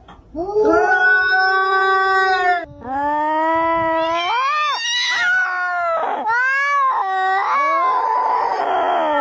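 Cat yowling (caterwauling) in a series of long, drawn-out calls. The first is held steady for about two seconds, and the later ones rise and fall in pitch.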